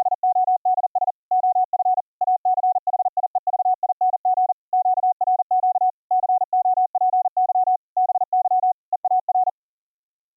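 Computer-generated Morse code sent at high speed from YPLog's software CW keyboard: a single steady beep keyed on and off in quick dots and dashes, stopping about nine and a half seconds in. The keying is clean, with no dropouts, pops or clicks.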